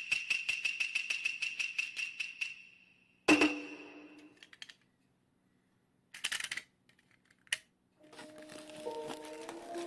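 A fast, even, high-pitched ticking that fades away, then a single loud hit with a low ringing tone. Near silence follows, broken by two short noisy swishes, and music with held notes begins about eight seconds in.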